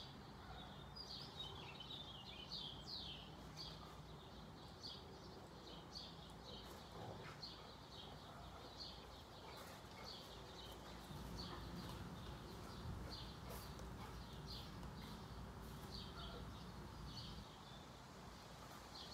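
Faint outdoor ambience: small birds chirping in short calls repeated every second or so, over a low steady hum.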